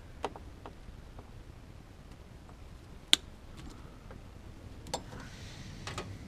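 Light clicks and taps from handling clear plastic brake-bleed tubing and a hand cutter. About three seconds in comes one sharp snap, by far the loudest sound, as the cutter trims the tube to length.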